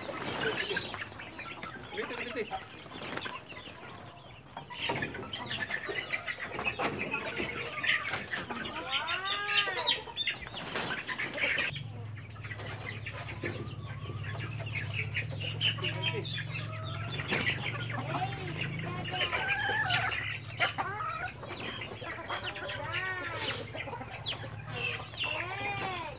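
Young chickens clucking and peeping over and over as they are handled into a wooden coop, with occasional knocks. A low steady hum comes in about halfway through.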